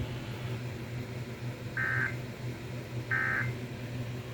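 Emergency Alert System digital data bursts: two short, buzzy tone bursts about a second and a half apart, the end-of-message code that closes a broadcast warning. A low steady hum runs underneath.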